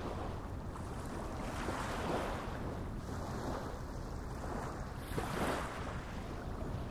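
Steady wind and wave noise by open water, swelling briefly a couple of times.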